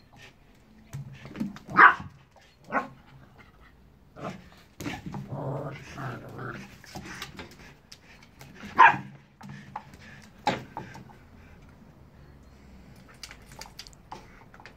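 Two dogs at play, barking sharply a few times, loudest about two seconds and nine seconds in, with a stretch of growling in between.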